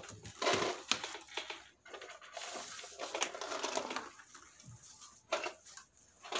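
Soft, uneven rustling and scraping of a fabric blanket being shifted about, with no meowing.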